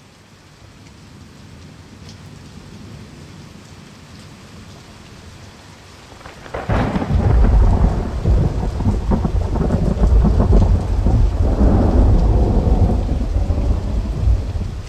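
Thunderstorm: a soft hiss of rain, then about six and a half seconds in a sudden loud crack of thunder that rolls on as a long deep rumble, swelling again near the end.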